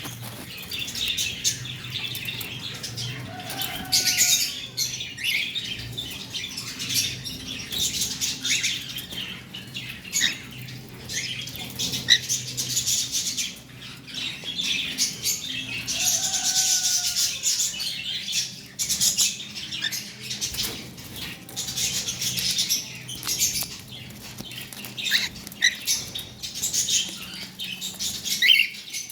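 Cockatiel pecking and crunching at its food, a busy run of small clicks and rustles, with a short bird chirp twice, a few seconds in and about halfway through.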